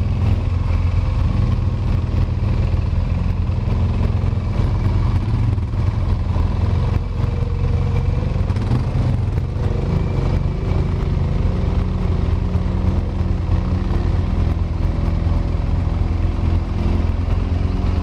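Quad bike (ATV) engine running steadily with a low, even drone.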